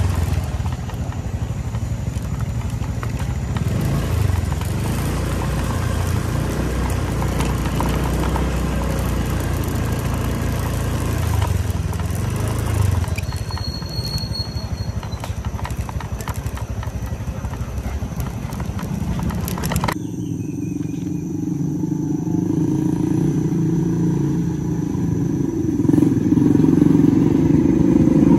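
Motorcycle engine running steadily while riding along a rough path; after a sudden cut about two-thirds in, another motorcycle approaching, its engine growing louder near the end.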